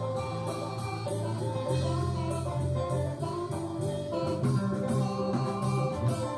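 Haitian kompa music: a steady cymbal beat over a moving bass line and sustained chords.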